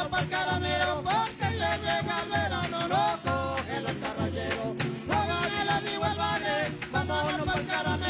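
Live tamunangue folk music: singing over strummed cuatros and larger cinco guitars, with a hand drum keeping a steady pulsing beat.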